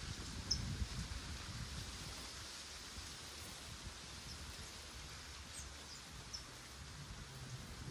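Dry crushed sugarcane bagasse rustling faintly as it is gathered by hand into a woven basket, with a few short high chirps now and then.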